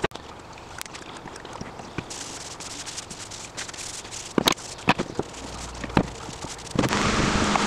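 Wooden chair parts knocking sharply against a workbench as they are handled, over the soft rubbing of a cloth wiping finish onto oak. Several loud knocks come in a cluster past the middle, and near the end a louder steady hiss with a faint hum sets in.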